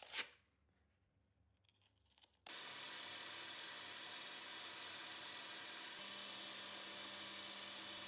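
A hand brushes briefly across a sanding disc at the start. About two and a half seconds in, the lathe-mounted sanding disc comes on and runs with a steady hiss and a thin high whine, while the walnut handle scales of a pocket knife are sanded against it near the end.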